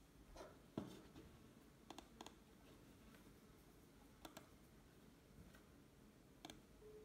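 Faint computer mouse button clicks: a few single clicks and two quick double-clicks, with a louder dull thump about a second in.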